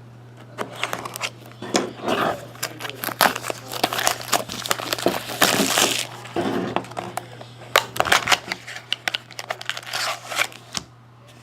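Trading card pack wrappers crinkling and tearing as hockey card packs are opened and handled: irregular crackles and rustles, with a longer tearing rip about five seconds in.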